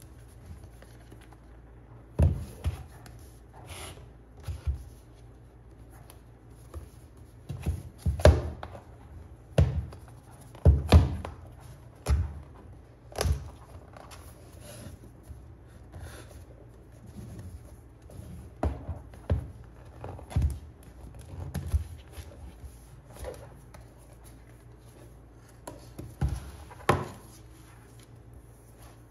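Irregular taps, knocks and thuds of an iPad Pro box and its packaging being handled and set down on a hard surface, with the loudest thuds coming in a cluster around the middle.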